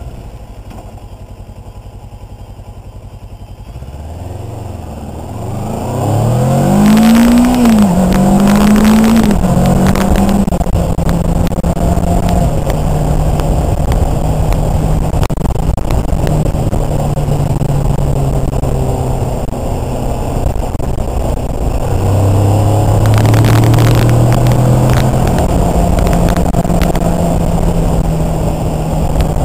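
Motorcycle engine breathing through a homemade free-flow muffler, heard from the rider's seat: low and steady for the first few seconds, then accelerating hard about five seconds in, the revs climbing and dropping with two quick upshifts, then holding a steady cruise, with another short rise in revs about two-thirds of the way through.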